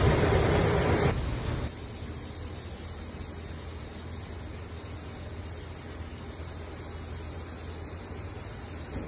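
Wind rumbling on the microphone, cutting out about a second and a half in and leaving a steady faint hiss of background noise.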